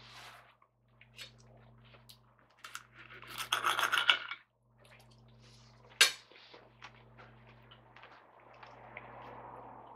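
Knife and fork cutting bacon on a plate: the knife saws and scrapes against the plate for about a second and a half near the middle, followed by a single sharp clink of cutlery on the plate, with lighter taps and scrapes around them.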